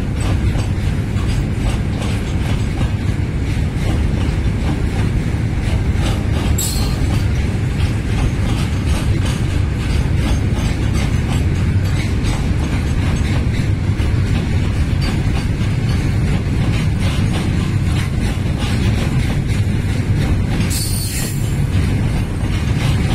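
Freight wagons rolling past close by: a steady loud rumble of steel wheels on rail with rapid clicks over the rail joints. Two short high-pitched sounds from the wheels cut in, about six seconds in and again near the end.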